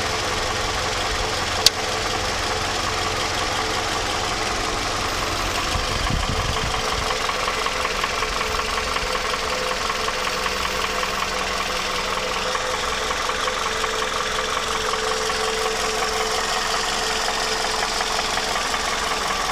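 Toyota 2AZ-FE 2.4-litre inline-four running steadily with a persistent knocking noise, which the owner takes most likely for a worn, knocking timing chain. A single sharp click sounds about a second and a half in.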